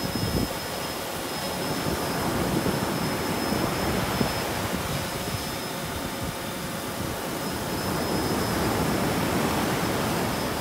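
DJI Phantom 3 quadcopter flying overhead, its propellers giving a steady buzz with a thin high whine, over gusty wind on the microphone.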